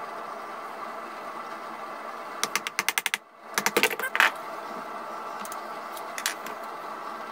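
Hand carving with a carving gouge on a wooden gunstock: runs of sharp clicks and taps, a quick series about two and a half seconds in and another about a second later, with a single tap near the end, over a steady hiss.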